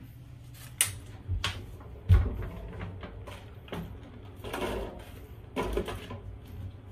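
Scattered knocks, clicks and thumps of food packs being put into a small mini-fridge and the fridge handled, the loudest a low thump about two seconds in.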